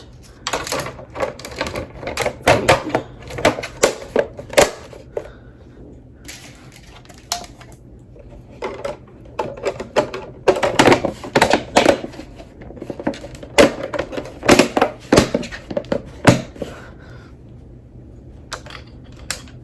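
Clusters of quick, sharp clicks and taps from a ring light's controls and body being handled while its light colour is changed, with quieter pauses between the clusters.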